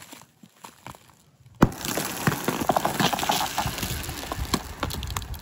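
An axe blade strikes thin pond ice once about a second and a half in, followed by a few seconds of crackling and sharp ticking as cracks spread through the ice sheet.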